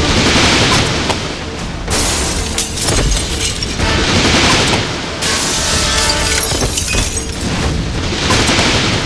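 Action-film fight soundtrack: dramatic background score under a steady low drone, with heavy booms and a run of whooshing swells, one every second or two.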